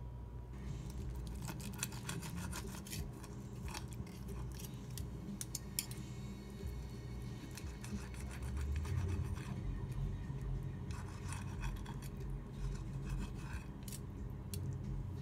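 A table knife sawing through a barbecue-glazed trumpet mushroom steak held in metal tongs, scraping and clicking against the ceramic plate in runs of short scratchy strokes.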